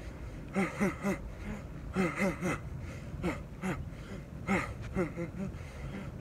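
A man's sharp exhales and short grunts, one with each punch, in quick groups of two or three, in time with a boxing combination.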